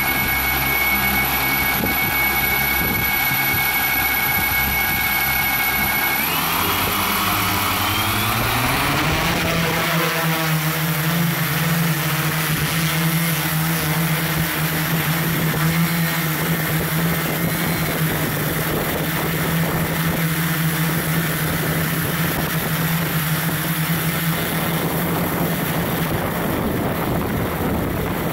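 Camera drone's electric motors and propellers: a steady multi-tone whine with the props spinning on the ground, rising in pitch about six seconds in as it lifts off, then a steady propeller hum as it climbs and flies.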